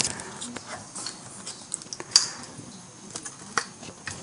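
Camera handling noise: scattered clicks, taps and rustling as a handheld camera is repositioned, with one sharp click at the start and another about two seconds in.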